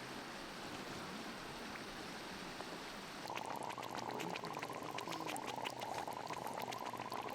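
Bubbling water, with a dense, rapid crackle of bursting bubbles that sets in about three seconds in.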